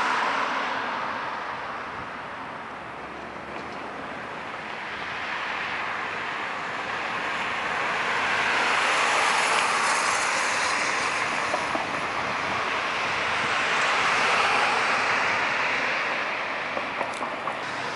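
Road traffic noise, vehicles passing along the street, swelling to its loudest about halfway through and again a little later.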